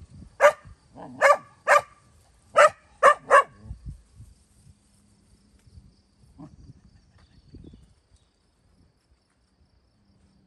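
A dog barking: six short, sharp barks in the first three and a half seconds, then it falls quiet.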